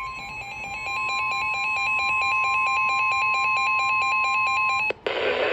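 Emergency weather alert tones: a steady single-pitch warning tone with a fast-pulsing electronic beep layered over it. Both cut off about five seconds in, when the synthesized broadcast voice begins reading the warning.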